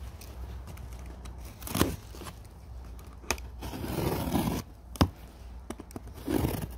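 Packing tape on a cardboard box being slit with a blade, then the cardboard flaps pulled open: scraping and crinkling rustles with a few sharp snaps.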